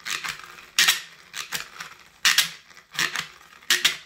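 Plastic toy spin-art spinner whirling a paint-dropped card, with a rattling whir that comes in short bursts, one or two a second.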